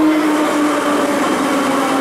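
Ezh3 metro car running, heard from inside the car: a steady motor whine slowly falling in pitch as the train slows, over the rumble of wheels on the track.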